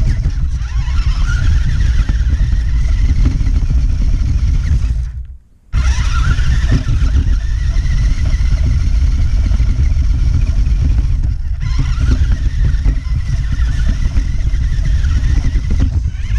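Onboard sound of a 1:18 scale 4WD electric RC car driven fast over rough ground: the motor's whine rises and falls in pitch with the throttle over a heavy rumble and clatter from the chassis and bumps. The sound cuts out for a moment about five seconds in, then picks up again.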